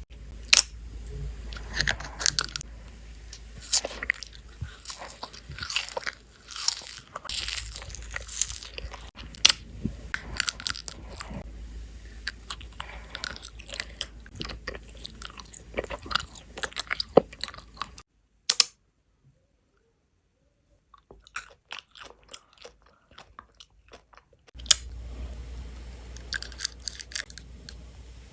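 Close-miked crunching, biting and chewing of candy, a dense run of sharp crunches and wet mouth sounds. About two-thirds of the way through it drops to near silence for several seconds, with a few faint clicks, then the crunching starts again.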